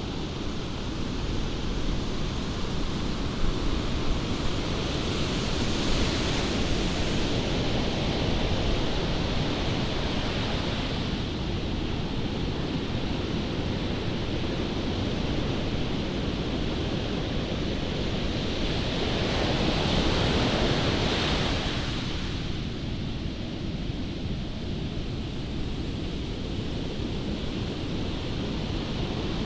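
Surf breaking and washing along the shore under strong wind that buffets the microphone with a steady low rumble. The wash swells twice, about five seconds in and again around twenty seconds in.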